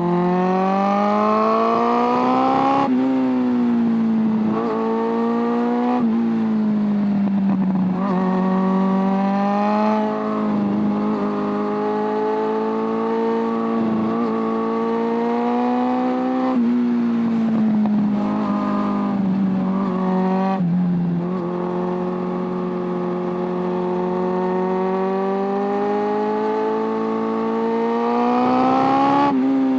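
Suzuki Bandit 600's carbureted inline-four engine under way, its pitch climbing under acceleration and dropping sharply at a gear change about three seconds in. Through the middle it holds a steady cruising pitch, easing off and picking up again, with more drops later on and a climb near the end.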